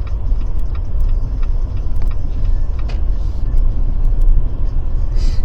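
Jeep Gladiator driving on a snow-covered road: a steady low rumble of engine and tyres, with scattered light ticks.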